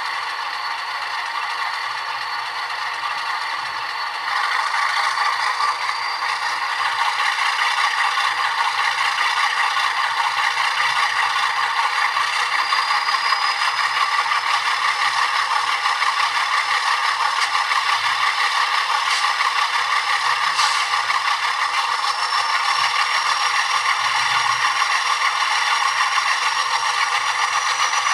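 Soundtraxx Tsunami2 sound decoder playing Alco diesel engine sound through a small ESU Sugar Cube speaker in a model locomotive: a steady rattling engine run that steps up in loudness about four seconds in, with a thin high whine rising slowly above it.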